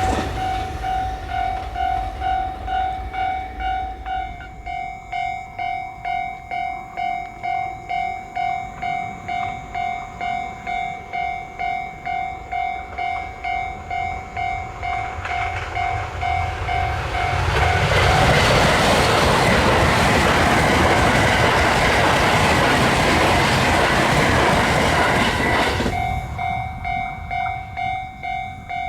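A Japanese level crossing's electronic warning bell clangs in an even pulse about twice a second. Just past halfway a train passes over the crossing, and its loud rush of wheel and rail noise drowns the bell for several seconds. The bell is heard again near the end as the train clears.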